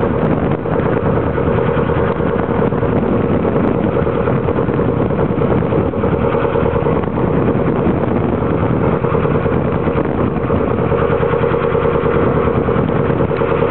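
Boat engine running steadily under way, a constant drone mixed with the rush of wind and water.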